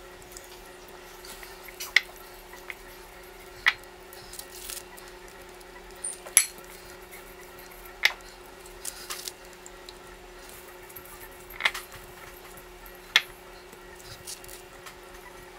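Glass mixing bowls knocking and clinking against a granite countertop as chicken wings are dipped in egg wash and tossed in crushed chip coating: about six sharp knocks a second or two apart, with a few softer taps between, over a faint steady hum.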